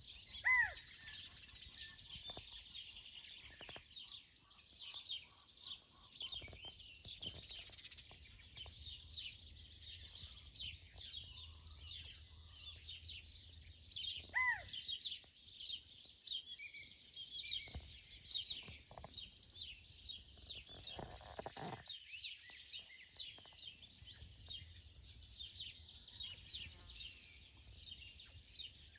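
Dawn chorus of many small birds chirping continuously, with a quail's single arched call rising and falling in pitch about half a second in and again about fourteen seconds later.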